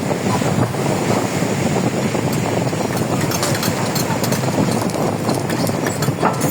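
Heavy equipment's diesel engine running as the machines work through seawater: a steady, dense rumble, with scattered sharp clicks from about two seconds in.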